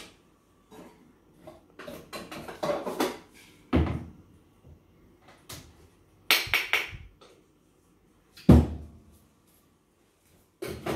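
Espresso-making gear handled on a wooden counter: scattered clicks and clatters of metal tools, with two heavy thumps about four and eight and a half seconds in and a short rattling burst between them.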